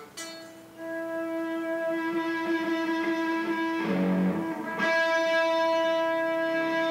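A single sustained note on a Chapman ML7 seven-string electric guitar through an amp, swelling up gradually as the volume knob is turned. About four seconds in the note breaks into a brief rough, noisy patch, then swells back up and holds: the volume pot crackles because it is not clean.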